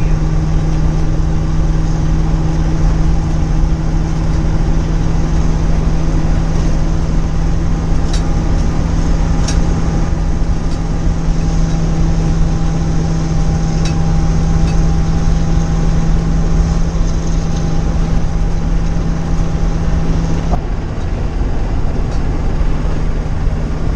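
A Class A motorhome driving down the road, heard from inside the cab: a steady engine drone and road rumble with a constant hum, and a few light rattles. The hum cuts off suddenly about twenty seconds in.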